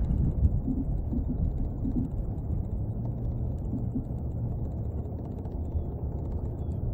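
Bowling ball rolling across thick frozen lake ice: a steady low rumble that slowly fades, with a few faint, high, falling chirps later on.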